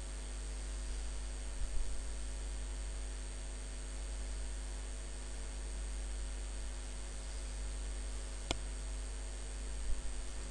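Steady low electrical mains hum with a faint hiss, and a single sharp click about eight and a half seconds in.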